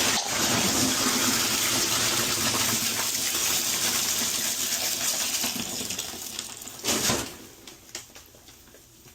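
A loud rush of gushing, splashing water that fades over the last few seconds, with a short burst of noise about seven seconds in.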